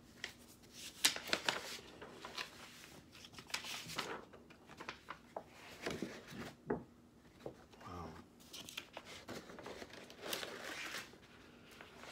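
Large sheets of drawing paper being lifted, flipped over and laid down: irregular rustling and crinkling with a few sharp paper snaps, and a longer rustle near the end.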